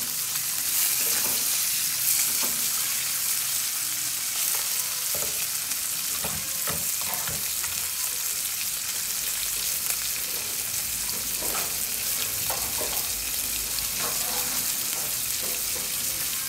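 Fish frying in chilli and lemongrass spice paste in a wok: a steady sizzle with scattered small crackles, while a spatula stirs the fish through the paste.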